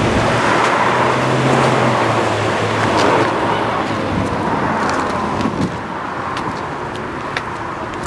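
Steady rushing outdoor noise of passing cars mixed with surf, swelling and fading every couple of seconds, with a low engine hum at the start. A few light clicks come in the second half.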